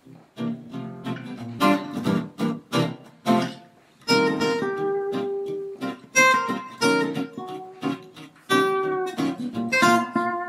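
Acoustic guitar music: a run of strummed chords for about the first four seconds, then picked single notes ringing on.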